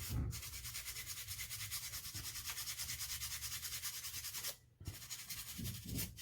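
A brush scrubbing the corroded, liquid-damaged circuit board of a Samsung Galaxy S6 in rapid, even strokes, about five a second, pausing briefly about four and a half seconds in.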